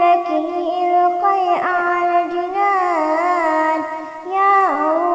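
A young girl singing a nasheed in Arabic: a single voice holding long, ornamented notes that slide and turn in pitch, with a short breath near the end.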